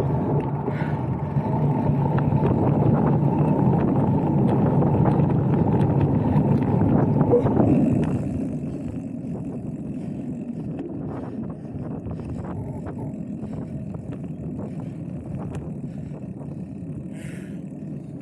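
Mountain-bike riding noise: wind rumble on the mic and tyres rolling on the trail, loud and steady, dropping about eight seconds in to quieter rolling with scattered clicks.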